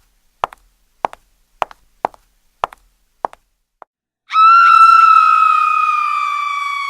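A sound effect: sharp double ticks about every 0.6 s, stopping a little over three seconds in, then a loud electronic tone that starts suddenly and slowly sinks in pitch as it fades.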